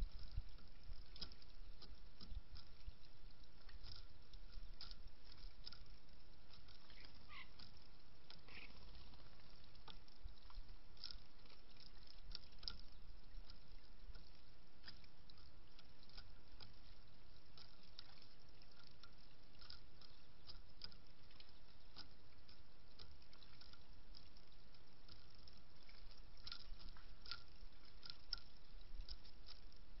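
Mourning dove pecking through hulled sunflower seeds on a wooden platform feeder: scattered light, irregular clicks and ticks over a steady outdoor background hiss and low rumble.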